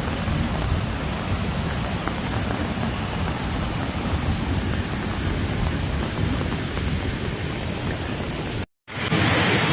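Heavy storm rain: a steady rushing noise with a strong low rumble. Near the end it cuts out for a moment and gives way to a brighter rush of rain or water.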